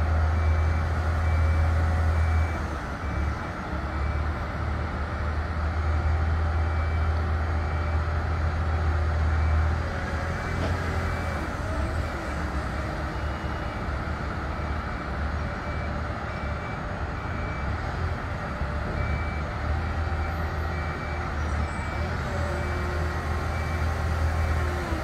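Volvo diesel engine of a Colmar SL160D railcar mover running under load as it pulls a rail wagon, a steady deep rumble. Over it, a high warning beeper repeats at an even pace.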